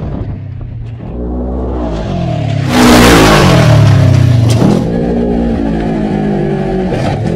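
Small UTV engine revving, its pitch rising and falling as the throttle opens and closes. A loud rushing noise comes in about three seconds in and lasts nearly two seconds.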